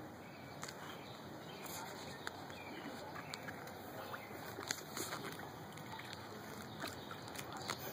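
Japanese Spitz wading in a shallow inflatable kiddie pool, its paws sloshing the water with scattered light splashes over a steady background hiss.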